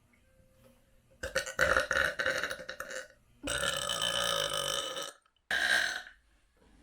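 A person burping three times in a row: two long burps of nearly two seconds each, the second starting and stopping abruptly, then a shorter one near the end.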